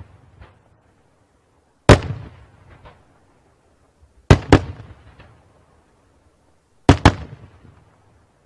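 Daytime fireworks shells bursting overhead: five loud, sharp bangs, one and then two quick pairs, about two and a half seconds apart. Each trails off in an echo, with fainter pops in between.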